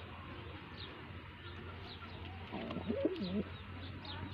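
White Madrasi pigeon cooing once, a wavering call about three seconds in, over faint short high chirps repeating every half second or so and a steady low hum.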